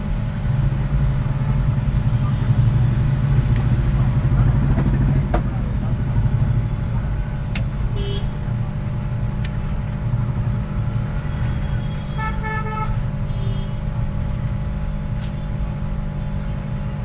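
Hot-air rework station blower running steadily with a low, even hum. A few sharp clicks, and around the middle a short horn-like tone.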